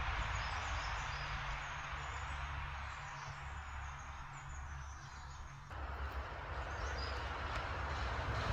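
Small birds chirping over a steady low outdoor rumble. The background changes abruptly about two-thirds of the way through.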